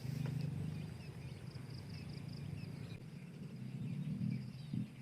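Outdoor background of faint, high, repeated chirping from small animals over a low steady rumble.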